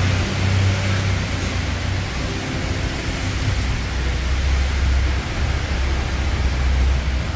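Steady city ambience: an even hiss with a low hum underneath that drops in pitch about halfway through.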